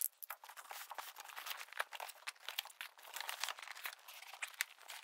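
Cardboard boxes being pulled out of a larger cardboard carton and set down: a quick run of cardboard scraping, rustling and small knocks, played back sped up.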